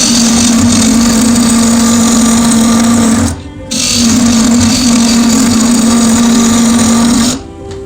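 Electric woodworking power tool running with a steady hum, in two runs of about three seconds each with a short stop between.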